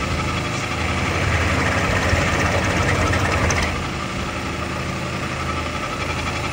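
A workshop machine running steadily, with a low motor hum under a higher hiss that grows louder from about a second in until nearly four seconds in.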